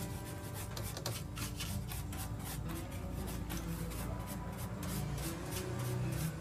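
A brush scrubbing a circuit board wet with thinner, a rapid run of short scratchy strokes, over faint steady background music.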